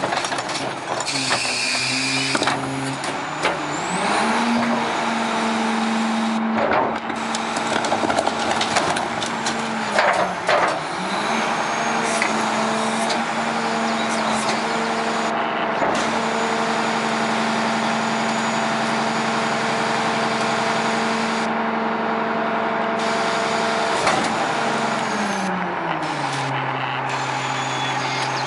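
McNeilus rear-loader garbage truck's diesel engine revving up and holding high revs while the hydraulic packer runs its compaction cycle on a dumped compost cart, with a few metal clanks along the way. A short hiss comes near the start, and the engine drops back to idle near the end as the cycle finishes.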